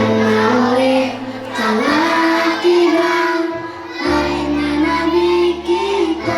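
Children's choir singing an Indonesian sholawat song in praise of the Prophet Muhammad, drawing out long held notes over steady instrumental accompaniment.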